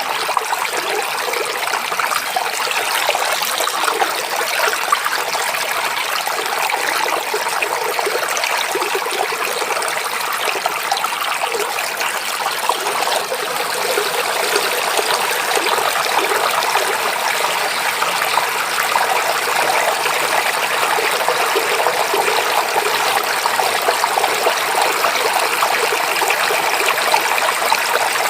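Shallow forest stream babbling and trickling over stones, a steady rush of water with small splashes throughout.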